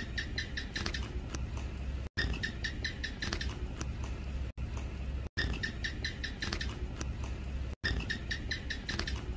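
House gecko (Hemidactylus) calling: four runs of rapid, sharp chuck-chuck chirps, each about a second and a half long. The sound breaks off for a moment between runs.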